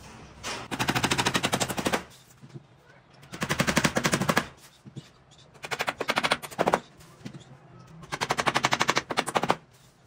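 Claw hammer driving nails into a wooden cage frame to pin wire mesh down: four quick bursts of rapid strikes, each lasting about a second, with short pauses between.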